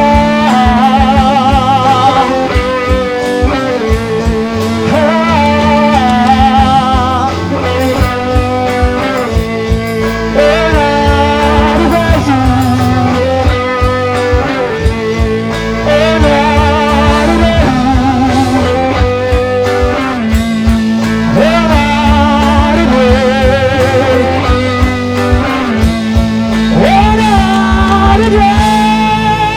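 Rock band playing live and loud: drums and bass under a lead line that bends and wavers with heavy vibrato.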